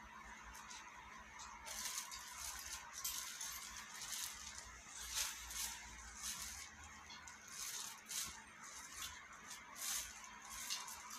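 Clothes being handled on a shop rack: fabric rustling and brushing, with irregular light scrapes and clicks of hangers, over a faint steady hum.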